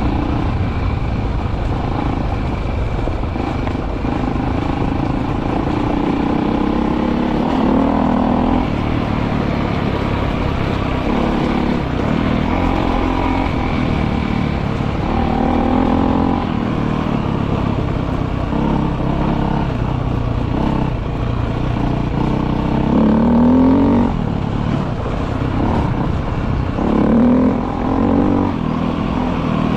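Off-road motorcycle engine running while riding, its pitch climbing and dropping several times with the throttle, over a steady rushing noise.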